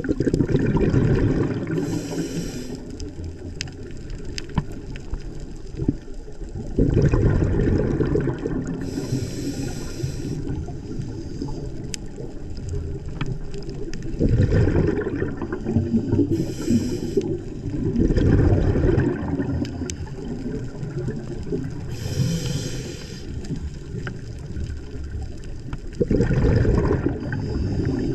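A scuba diver breathing underwater through a regulator: about five breathing cycles, each a loud low rumble of exhaled bubbles followed by a short hissing inhale.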